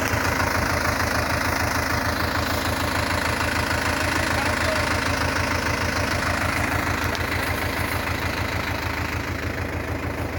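Diesel farm tractor engine running steadily at idle with an even, throbbing beat.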